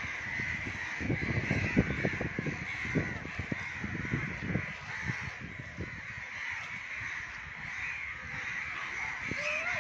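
A flock of birds calling and chattering steadily in the trees. Over the first half come many short knocks and rattles from a child's bicycle being handled and lifted.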